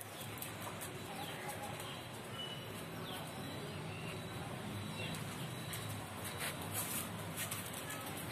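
Outdoor background with birds chirping faintly and pigeons cooing, and a few light clicks about two-thirds of the way through.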